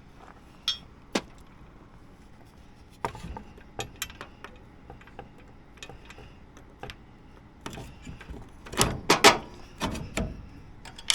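Scattered sharp clicks and knocks at irregular intervals, with a louder cluster of knocks about nine seconds in.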